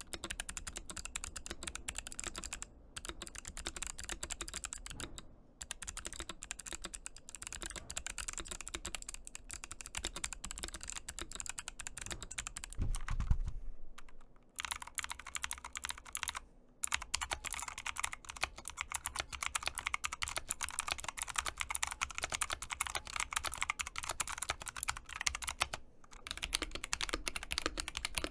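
Fast typing on mechanical keyboards, a dense run of key clicks broken by a few brief pauses. These are sound-test clips: the Cidoo V75 briefly, then the ASUS ROG Azoth in clicky and modded form. There is a single low thump about thirteen seconds in, and the typing turns brighter after a short pause just after it.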